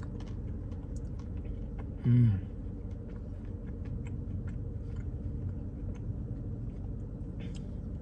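A person chewing and eating ice cream, with many small mouth clicks, over a steady low hum. About two seconds in there is one short voiced 'mm'.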